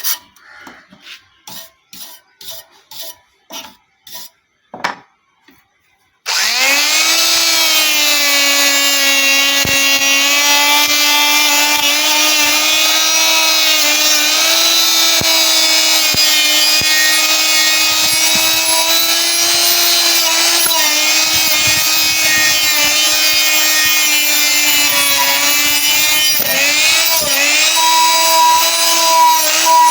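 Short rubbing strokes on metal, about two a second, then a pause. An electric grinder then starts, spins up and runs with a steady high whine, its pitch dipping briefly a few times under load.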